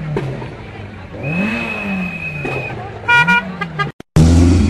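Car engines revving in rising and falling blips, a steady high tone in the middle, and a car horn tooting in quick short bursts about three seconds in. After a brief cut, a loud low engine note comes in near the end.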